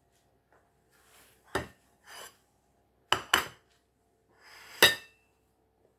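Dishes clinking as they are handled and set down: four sharp clinks with softer scraping between them, the last one ringing briefly.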